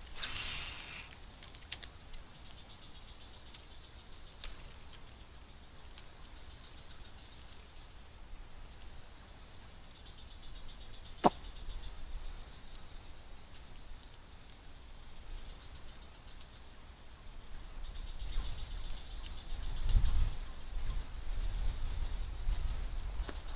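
Insects chirping and droning steadily with a thin high-pitched whine. One sharp click comes about eleven seconds in, and a low rumble builds in the last few seconds.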